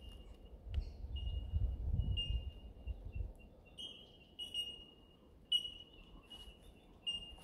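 Bell miners (bellbirds) calling: a run of clear, high notes held on one pitch, repeated and overlapping. A low rumble on the microphone during the first three seconds.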